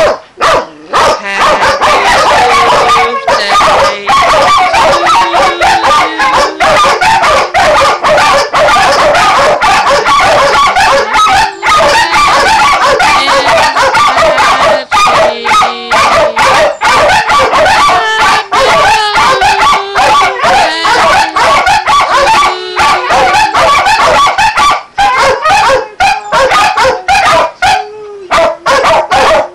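Several dogs barking and howling together in a loud, unbroken chorus: rapid sharp barks all through, mixed with drawn-out howls. The chorus thins out near the end.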